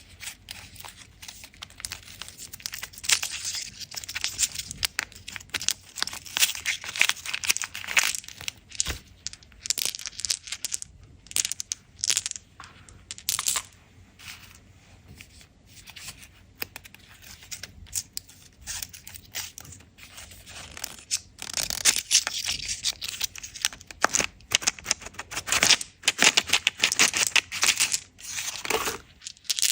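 Candy wrappers being crinkled and torn open by hand, in irregular crackly bursts with a quieter stretch midway.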